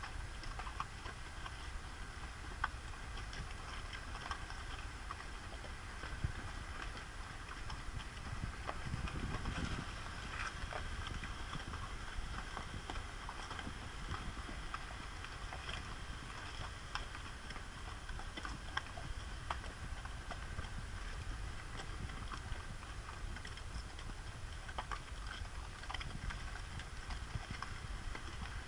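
Horses walking on a rocky mountain trail, hooves clopping irregularly on rock and packed dirt, over steady low background noise.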